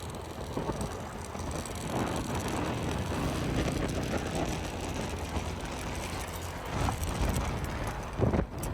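Riverboat engine running steadily with a low hum.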